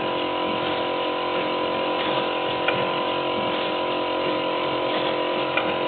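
Wire-processing machine running steadily, a hum with several steady tones and a few faint clicks.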